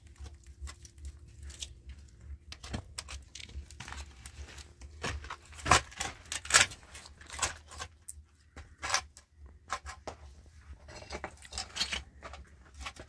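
Old wooden roof poles and boards knocking, creaking and cracking as they are pushed and pulled by hand, in irregular sharp clicks, loudest twice about halfway through.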